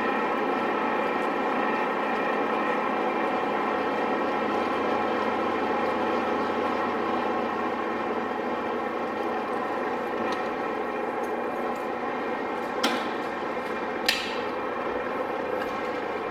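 Radial arm drill running steadily, its spindle and gearing giving a dense multi-toned machine drone. Near the end come two sharp clicks a little over a second apart.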